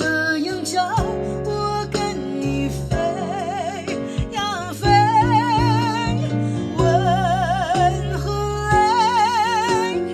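A singer holds long notes with a wide, even vibrato over an instrumental backing track that has plucked-string accompaniment. The voice is dry, with no reverb or effects added.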